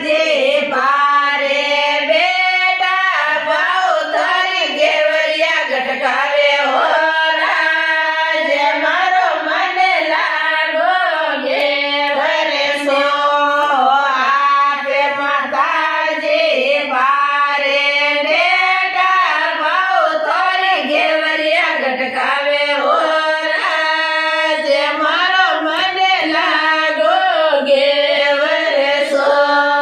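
Women singing a Marwari folk song in a continuous, gliding melody, with no instruments.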